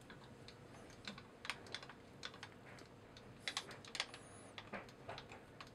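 Faint, irregular light metal ticks and clicks as a milling machine's end mill is lowered to just scrape the aluminium flywheel blank, touching off. A brief high squeak comes about four seconds in.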